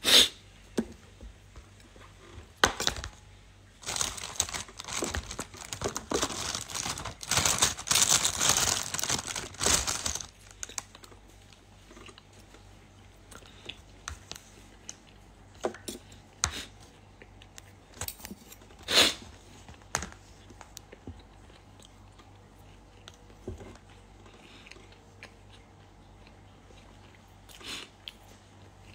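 Packaging being torn and crinkled: a dense rustle that starts about four seconds in and lasts about six seconds, followed by scattered small clicks and knocks.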